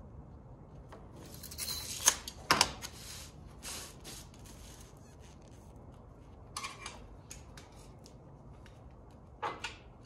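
Marker pen scratching along a sheet of template board, with the board rustling as it is handled and two sharp clicks in the first few seconds. Shorter rubs follow about two-thirds of the way through and near the end.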